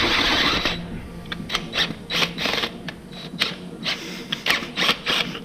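A drill bit cutting into a Renault Clio 182's cast-iron engine block: a steady grind in the first second, then irregular scraping and clicking as the bit bites in short bursts.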